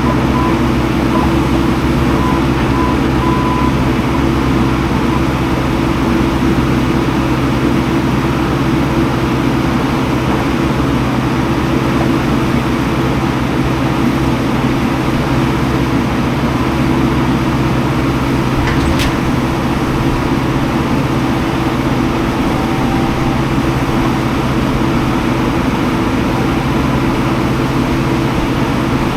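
Skid steer engine running steadily under work, with one short sharp click about two-thirds of the way in.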